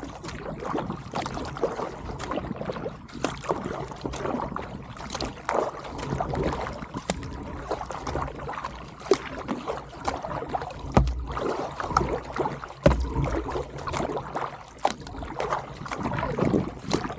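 Kayak paddle strokes dipping and splashing in calm water at a steady pace, with water dripping off the blades. Two brief low rumbles past the middle.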